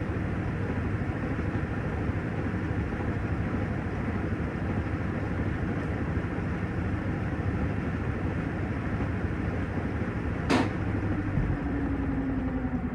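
Panasonic top-loading washing machine running with a steady mechanical rumble; near the end a sharp click, after which a low hum slowly falls in pitch.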